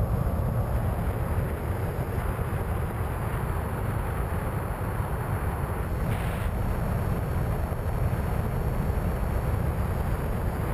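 Steady wind rush and rumble on the onboard GoPro camera of a Skywalker 1900 FPV plane in flight, loudest in the low end. A faint thin high tone runs through the middle.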